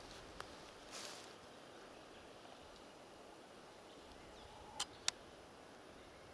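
Quiet outdoor hush with a brief rustle about a second in and two sharp clicks in quick succession near the end.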